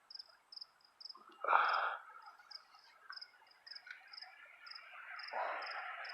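Insects chirping in a steady high-pitched rhythm, about two to three chirps a second. A short, louder call comes about one and a half seconds in, and a rising noise starts about five seconds in.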